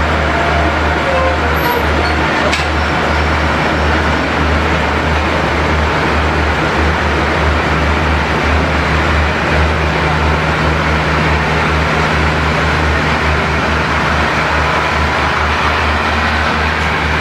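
Diesel passenger train running with a steady low, throbbing hum while its carriages roll slowly along the platform.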